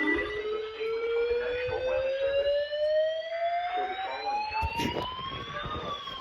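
Siren wailing: one long tone whose pitch climbs slowly and steadily, then turns and starts to fall near the end. There is a short sharp click about five seconds in.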